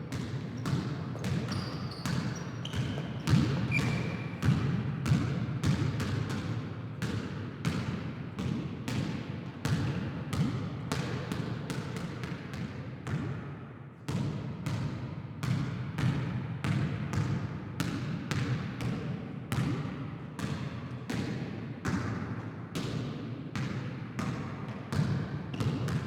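A basketball being dribbled on a hard floor: a steady run of sharp bounces, about two a second, over a low room murmur, fading out at the end.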